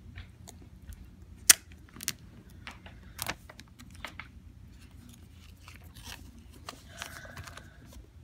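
Clear plastic shrink wrap crinkling and tearing as it is pulled off a phone box, in scattered sharp crackles, the sharpest about a second and a half in, with a brief squeak near the end.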